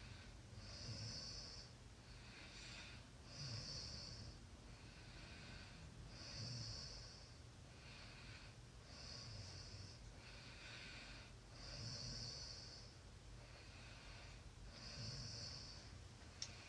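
Faint, steady snoring from a sleeping person: six slow breaths, one rasping hiss about every three seconds with a softer breath sound between. A single small click just before the end.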